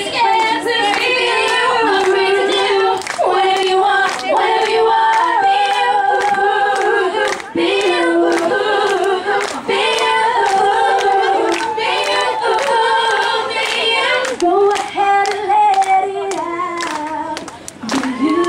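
A girl group singing a pop song live into handheld microphones, several female voices singing together, with sharp claps through it.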